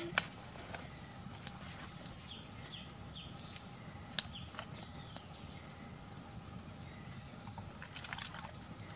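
Outdoor ambience of birds chirping over and over in short rising and falling calls, over a steady high insect drone, with a few sharp cracks, the loudest about four seconds in.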